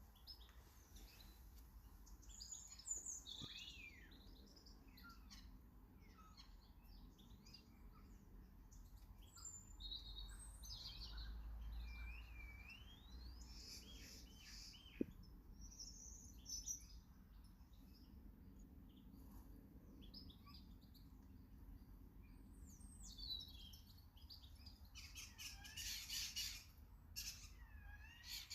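Several small garden birds chirping and singing, a mix of short chirps and whistled phrases, with a busier spell of calls near the end, over faint background rumble.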